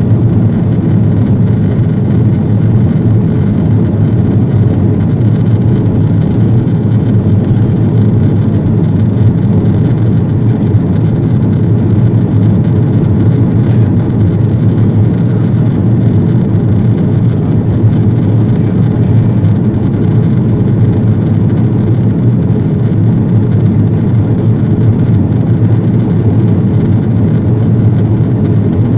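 Airbus A330-200 cabin noise during the climb after takeoff: a loud, even roar of the jet engines and rushing air, with a deep steady hum underneath and no change in pitch.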